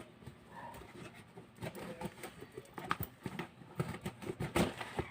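Faint, scattered clicks and rustles of a parcel being opened and its contents handled.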